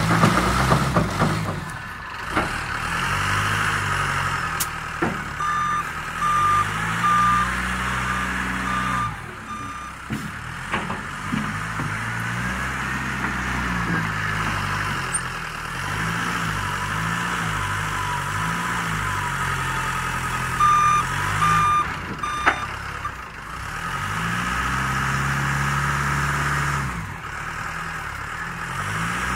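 TL1500 telescopic wheel loader's engine revving up and down as it works the bucket and drives, with two runs of short reversing beeps, about two a second, and a few knocks.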